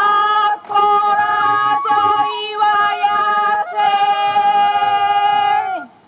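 Japanese folk song sung in long held, ornamented notes that step between pitches with brief breaks, ending in a downward slide just before the sound cuts off near the end.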